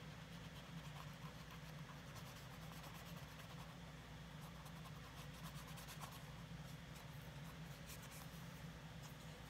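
Faint, scratchy rubbing of a cotton swab worked back and forth along the stitching of a leather shoe, cleaning out built-up residue, over a steady low hum.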